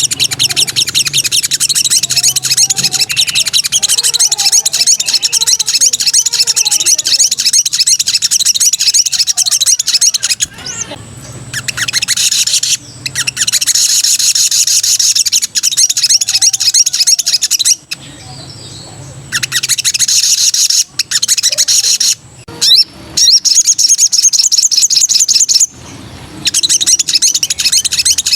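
Sogon (sogok ontong), a spiderhunter, singing its fast, high-pitched trilling song in long unbroken runs, broken by a few short pauses.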